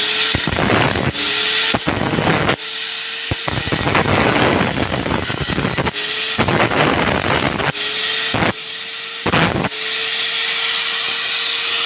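Electric arc welding crackling on steel in several runs, starting and stopping as the welder strikes the arc, with a faint steady whine underneath.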